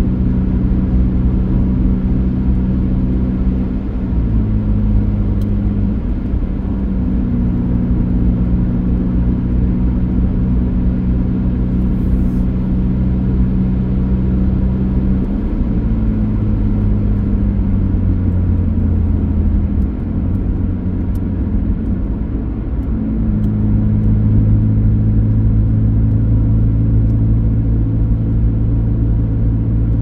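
Car engine running while driving: a steady low hum whose pitch steps up or down to a new level every few seconds as the revs change.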